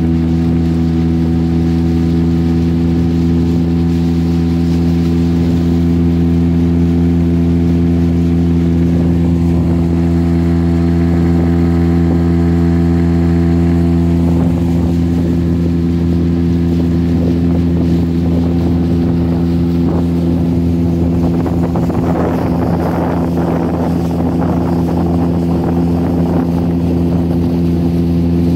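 Small outboard motor pushing an inflatable boat, running at a steady, unchanging speed. About three-quarters through, the rush of water along the hull grows louder over the motor.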